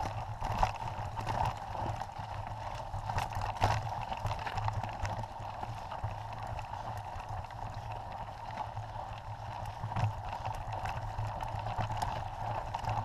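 Mountain bike riding over a rocky, loose-gravel trail, heard from a camera mounted on the handlebars: a steady rumble and rattle of the tyres and bike on the stones, with occasional sharp knocks as the wheels hit rocks.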